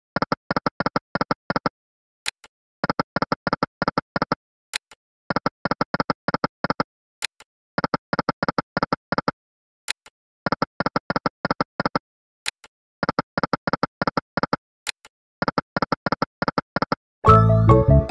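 Sound effects of the EGT Lucky & Wild online slot game. A click is followed by a quick run of about ten short, pitched ticks as the reels spin, and this repeats about every two and a half seconds. Near the end a louder win jingle plays as a line win lands.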